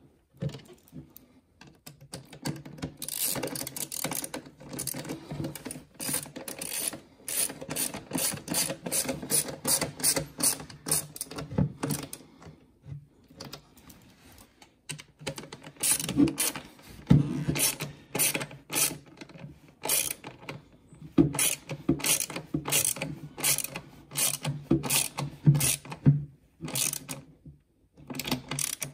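Hand ratchet clicking in quick runs with short pauses, as screws are driven back in and tightened.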